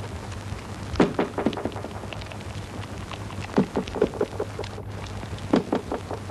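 Irregular crackling clicks and pops, bunched in a few clusters, over a steady low hum.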